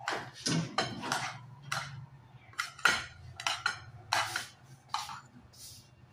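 Metal spatula scraping and knocking against a nonstick frying pan as fried rice is scooped out into a bowl: a string of irregular scrapes and clinks, the sharpest about three seconds in.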